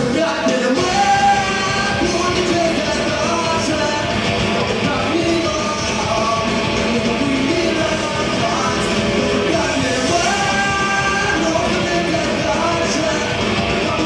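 A punk rock band playing live: electric guitars, bass and a drum kit with a male voice singing over them.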